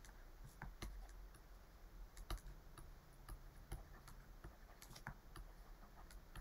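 Faint, irregular clicks and taps of a pen stylus writing on a tablet, several a second.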